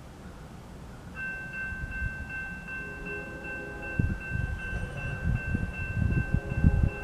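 Railroad crossing warning bell starting to ring about a second in and then dinging steadily and rapidly as the crossing signals activate for an approaching train.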